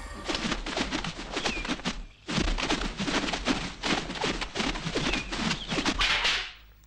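Fast, irregular clatter of sharp slaps and stamps, several a second, with a few short shouts: a group of martial artists training in unison, from a kung fu film's soundtrack. It breaks off briefly about two seconds in, then runs on and fades near the end.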